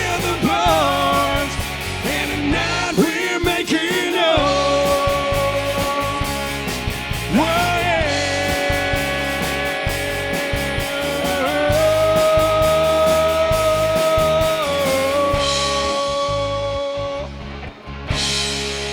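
Rock song by a full band: drums and bass under a lead line that bends in pitch over the first few seconds, then holds long steady notes. Near the end the band drops briefly, then comes back in with a cymbal crash.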